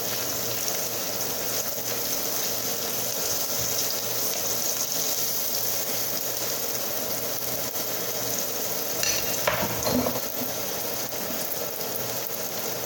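Sliced garlic and green chilies sizzling in hot oil in a nonstick frying pan, with a spatula stirring them around. The sizzle is a steady hiss, with a brief louder knock about nine seconds in.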